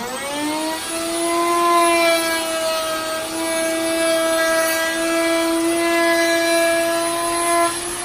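Electric handheld trim router spinning up to speed in the first half second, then running with a steady high whine.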